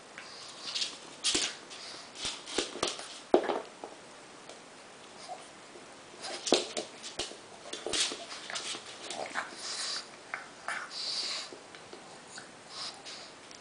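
A pug puppy and an adult pug playing on a laminate floor: short dog snuffles and small whining noises, mixed with scattered sharp clicks and taps of claws and paws on the floor.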